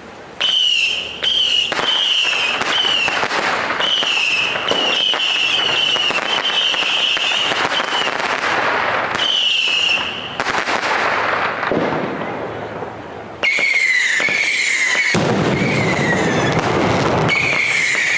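A 60-gram ground fountain firework with titanium, spraying with a loud rushing hiss. A high, wavering whistle rides over it, breaking off and restarting several times, and drops to a lower pitch about 13 seconds in.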